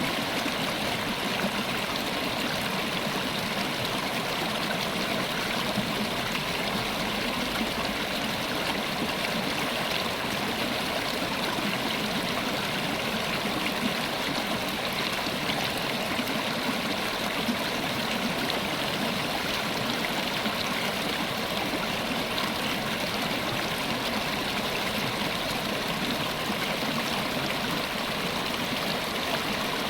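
River water running over stones: a steady, even rush and babble with no pauses.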